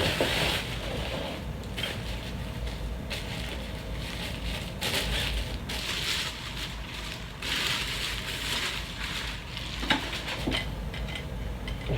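Packaging around a photography light stand crinkling and rustling in repeated bursts as it is unwrapped, with a couple of sharp clicks about ten seconds in.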